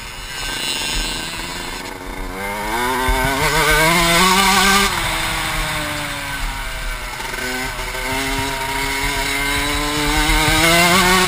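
Motocross dirt bike engine under hard throttle, heard from the rider's helmet. Its pitch climbs for a few seconds, drops sharply about five seconds in as the rider shuts off or shifts, then climbs again toward the end.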